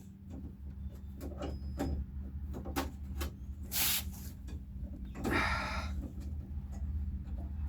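Hand work on a Jeep door latch linkage: a string of small clicks and knocks, with two short scraping rasps about four and five and a half seconds in, over a steady low hum.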